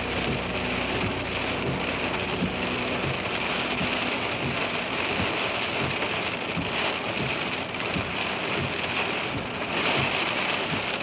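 Steady rain falling, with individual drops heard as many small ticks.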